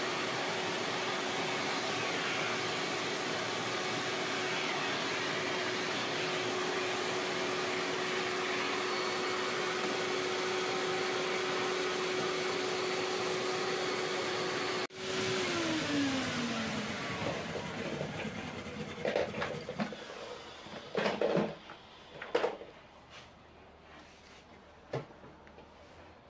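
Hyla water-filter vacuum cleaner running with a steady whine and suction noise as its nozzle works over the keys. About halfway through the motor stops and winds down with a falling whine, followed by a few knocks and clunks as the machine and hose are handled.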